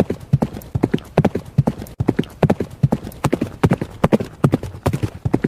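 Hooves of a running horse, a quick uneven rhythm of hoof strikes repeating steadily in a gallop.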